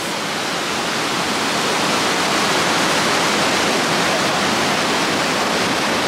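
A waterfall rushing: a loud, steady wash of falling water. It grows a little louder over the first two seconds, then holds even.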